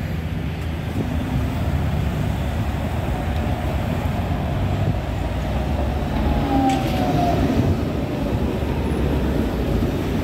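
V3A-93 articulated tram approaching and rolling past along its rails, a steady low rumble of wheels and running gear, with a short faint squeal that dips slightly in pitch about two-thirds of the way in.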